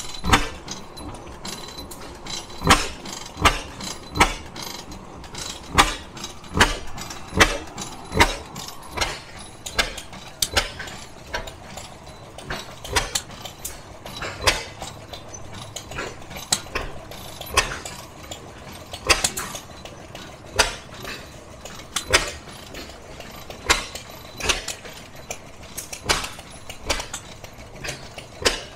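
Antique stationary gas engines running, with sharp exhaust pops coming at uneven intervals of roughly a second over a steady low hum.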